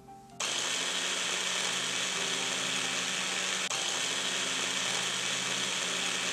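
Small electric blender running at a steady speed, grinding a quarter onion into a paste. It switches on suddenly about half a second in and holds one even pitch.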